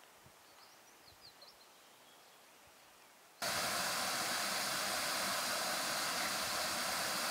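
Faint bird chirps over near silence. About three and a half seconds in, this switches suddenly to the steady rush of water pouring over the rim of a round overflow drain in a pond.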